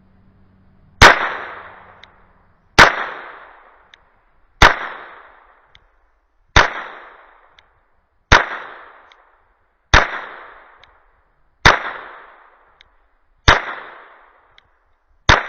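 A .22 LR firearm firing CCI Mini Mag rounds: nine single shots at a slow, even pace about two seconds apart, each with a short echoing tail and a faint tick between shots. The gun cycles every round without a malfunction.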